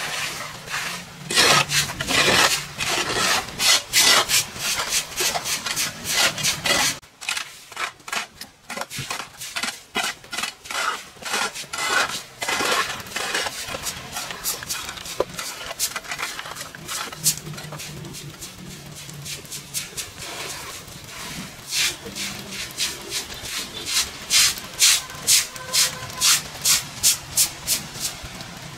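Repeated scraping strokes, one after another, in quick runs, settling into an even rhythm of about two strokes a second near the end.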